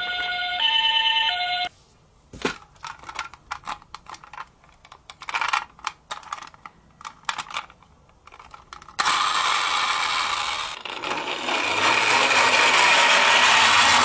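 A toy ambulance's electronic siren sounds in stepped tones and cuts off under two seconds in. Scattered clicks and rattles follow as the small plastic toy car is handled. About nine seconds in a steady whirring rush starts as the minicar's wheels and gears run and it rolls down a wooden ramp.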